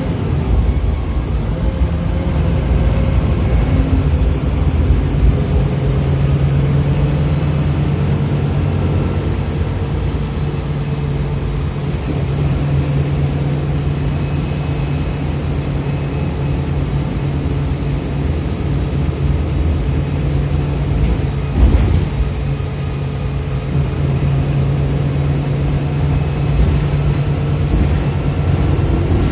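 Wright Pulsar single-deck bus on a VDL SB200 chassis heard from inside the saloon while driving: a steady engine drone over road and body noise, with one short thump about three-quarters of the way through.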